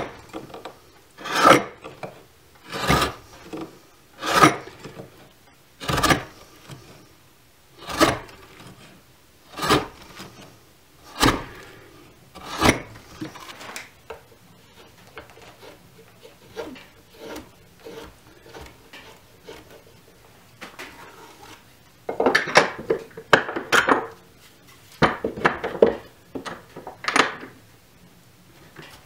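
A large half-round gouge slicing into green birch, scooping out the inside of a carved wooden mug: a crisp cut about every one and a half seconds for the first dozen seconds. Then come fainter, quicker scraping cuts, and near the end a louder stretch of scraping and knocks on the wood.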